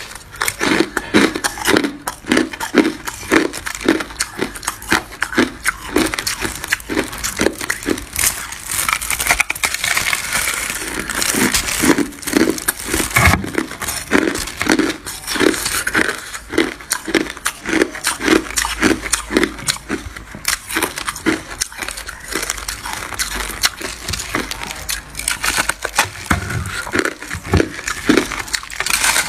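Close-up crunching and chewing of a chunk of freezer frost ice in the mouth: crisp, crackly crunches in a steady rhythm of about two chews a second.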